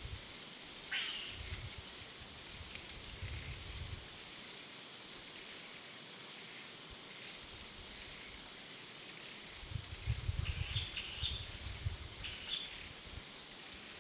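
Jungle daytime ambience: a steady high-pitched insect drone, with short bird chirps about a second in and again in a cluster near the end. Low rumbles come and go underneath.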